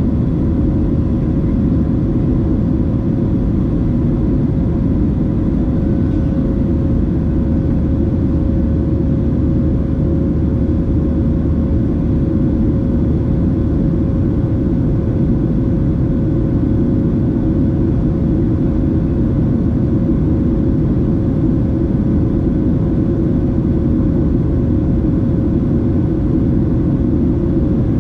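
Steady cabin noise of a Boeing 737-700 with its CFM56 turbofans running: an even low rumble with a faint steady hum above it, unchanging throughout.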